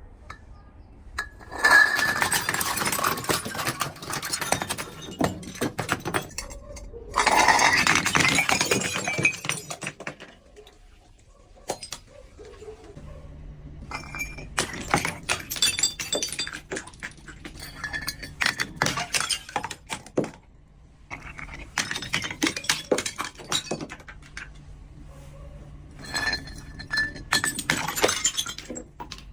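Glass breaking and crunching, with shards clinking: two long spells of dense crackling early on, then shorter bursts of clinking glass.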